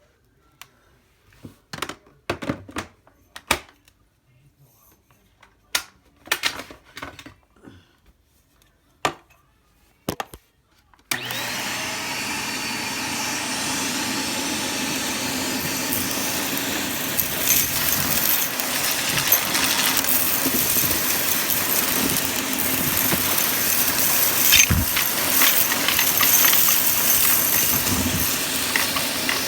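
Scattered clicks and knocks of vacuum parts being handled, then about eleven seconds in a vacuum cleaner switches on abruptly and runs steadily. Sharp ticks and crackles come through over the motor as crunchy debris is sucked up.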